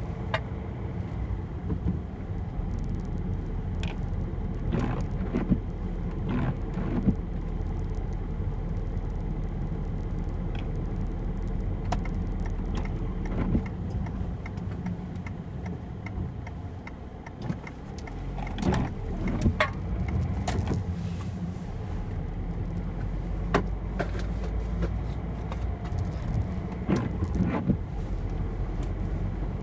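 Peugeot 206 1.4 HDi's 8-valve common-rail turbo diesel engine running, heard from inside the cabin while driving. A steady low drone is broken by frequent sharp clicks and knocks from the car's interior.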